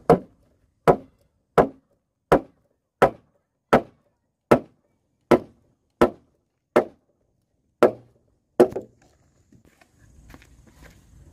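About a dozen heavy, even blows of a tool on timber, one roughly every three-quarters of a second, stopping about nine seconds in.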